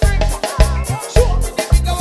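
Drum kit played with sticks along to a recorded song: sharp drum and cymbal strokes over a pulsing heavy bass line and a wavering sung vocal.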